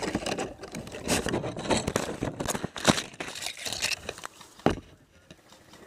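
Irregular scraping and rustling from a player on the move, broken by several sharp clicks and knocks, then quieter near the end.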